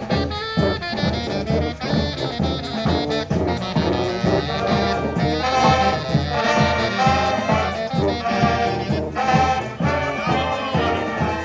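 Street brass band playing live: horns carrying a melody over a steady drum beat.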